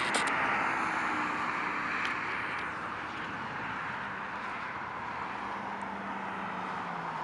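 Jet engine noise from a Boeing 777-200ER's Rolls-Royce Trent engines at approach power as the airliner passes low on short final: a steady rushing sound that fades gradually from about two and a half seconds in as the jet moves away toward touchdown.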